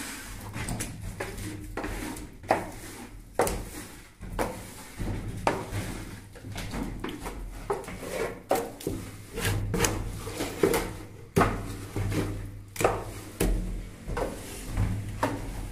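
Plasterer's straightedge scraping along wet gypsum plaster on a beam, striking off the excess, with irregular sharp clacks and scrapes of the rule against the plaster and beam edge.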